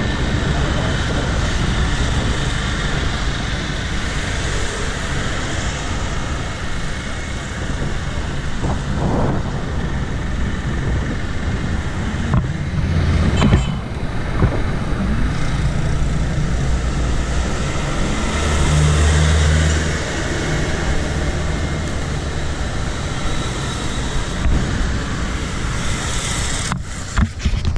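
Road traffic passing on a busy suburban road, heard over a steady rumble of wind on the microphone. One vehicle goes by louder about halfway through, and a low engine drone follows a few seconds later. The sound cuts off abruptly at the end.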